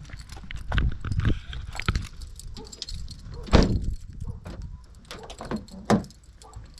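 Handling noise from a handheld action camera: a run of clicks, knocks and rustles, with two louder thumps about three and a half and six seconds in.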